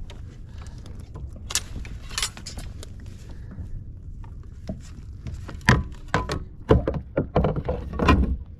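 Irregular knocks and clinks of gear and hard objects being handled aboard a kayak, over a steady low rumble. The knocks grow more frequent and louder in the second half, with several sharp ones close together.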